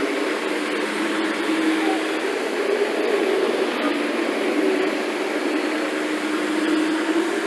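Steady drone of a motor in carpet-cleaning equipment running, with a pitched hum that wavers slightly in pitch.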